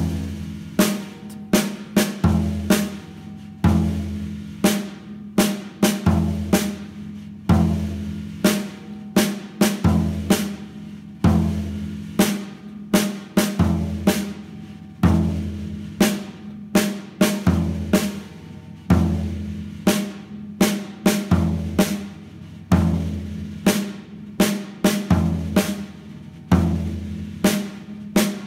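Snare drum and floor tom played with wooden sticks in a repeating basic beat, sharp snare cracks alternating with floor-tom strokes whose low tone rings on between hits.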